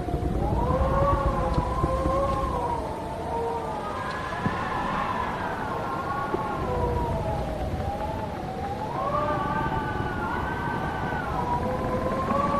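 Wind howling and whistling through a barn: several moaning tones slowly rise and fall together over a low rumble of gusts, with a few faint ticks and knocks.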